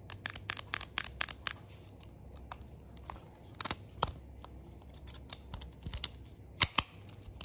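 Ruger LCR .38 Special revolver being worked by hand: irregular sharp metallic clicks from the cylinder and action, a dozen or more, as the owner fiddles with a trigger that is locked up.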